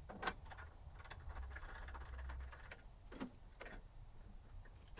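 Faint scattered clicks and light rattles as a caster wheel's metal bracket is fitted onto a steel griddle-cart leg and its acorn nut is turned with pliers. There is a sharp click near the start and a few more a little after three seconds.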